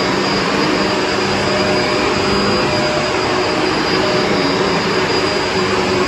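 Bissell MultiClean vacuum cleaner running steadily as it is pushed over carpet: a constant rush of suction with a steady motor whine on top.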